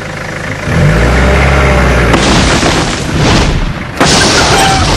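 A Toyota ute's engine revs hard from about a second in. Then a wooden outhouse creaks and breaks up as it is dragged down, with a loud crash about four seconds in.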